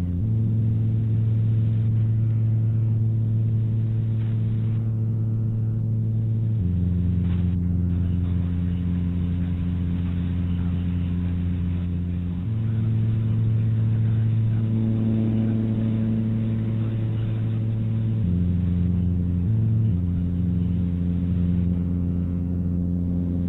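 Low, steady droning tones, a sustained hum-like chord that steps to a new pitch about every six seconds and briefly flickers between pitches near the end: an ambient drone soundtrack.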